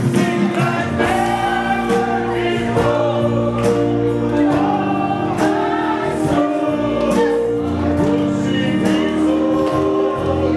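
Gospel worship music: several voices singing together over held instrumental chords.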